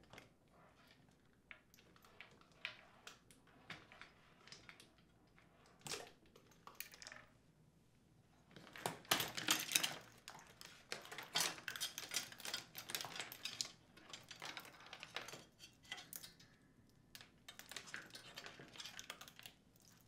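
Dishwasher wiring harness being pulled free of its plastic retaining clips and drawn out: a run of light clicks, taps and rustling of wires against plastic, busiest in the middle.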